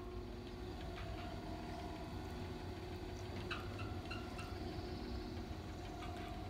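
Boat motor running steadily at low speed, a low rumble with a steady whine over it. A few short bird chirps come in about halfway through.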